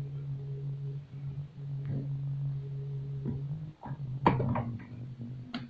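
A plastic bottle of rice-washing water handled and set down on a shelf, giving a short cluster of knocks and plastic crackle about four seconds in, with a few lighter clicks before it. A steady low hum runs underneath.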